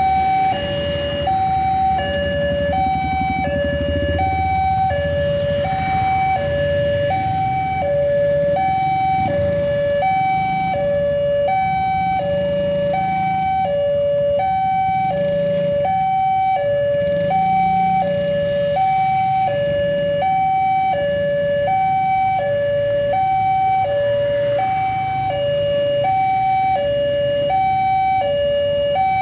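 Railway level-crossing warning alarm sounding a steady two-tone ding-dong, a higher and a lower tone taking turns about every 0.7 s, which signals that a train is approaching. Motorcycle and car engines run underneath it.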